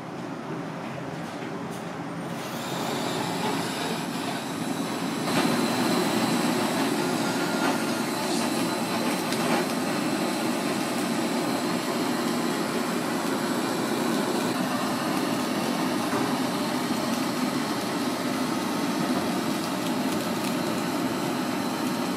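Handheld gas blowtorch flame running with a steady hiss while searing a fish fillet. It comes in a couple of seconds in and grows louder about five seconds in.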